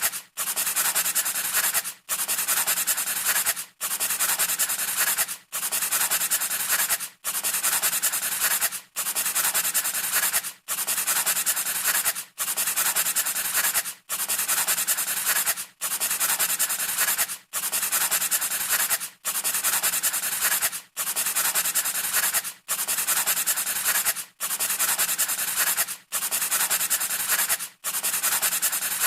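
A scratchy rubbing noise in identical strokes of about 1.7 s each, with a brief break between strokes, repeating evenly like a looped sound effect.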